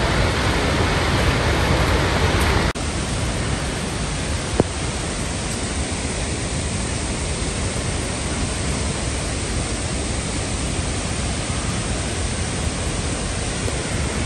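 Steady rushing of a large waterfall heard close to the plunge, a dense, even noise of falling water. About three seconds in it dips for an instant and carries on a little quieter, and a single short click comes soon after.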